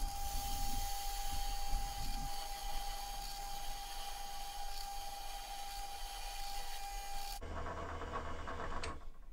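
Benchtop drill press running with a steady whine while a Forstner bit bores a hole into MDF. About seven seconds in the sound changes to a lower hum, which stops shortly before the end.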